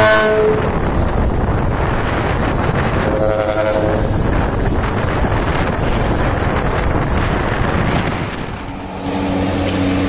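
Trumpet-style 'land ship' air horns on a Hino dump truck sounding in two brief blasts, one ending just after the start and another about three seconds in. Between them is steady road and wind noise from a moving vehicle. Near the end a lower-pitched horn blast begins.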